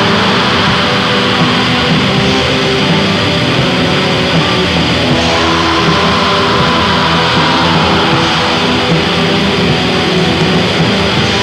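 Raw black metal demo recording: a dense, steady wall of distorted guitar, bass and drums, with a held higher note about halfway through.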